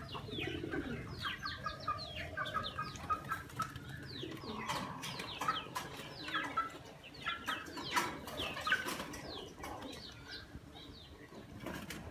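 Birds chirping and twittering in quick, repeated short falling notes, with sharp clicks scattered through as a dog eats from a metal bowl.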